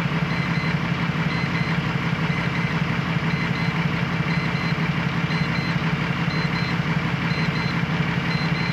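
Volvo FH truck's six-cylinder diesel engine idling steadily. A short electronic double beep repeats about once a second over it.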